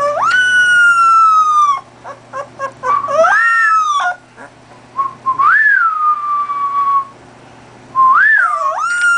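Very young Labrador puppy howling: a string of high, thin howls, each jumping up in pitch and then sliding slowly down, with a few short yips between them.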